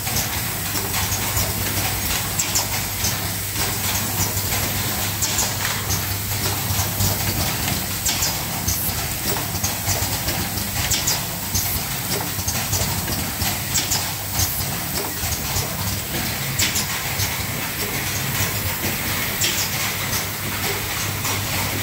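Automated laser spot-welding line with pneumatic fixtures running: a steady hiss and low hum with many short, sharp clicks.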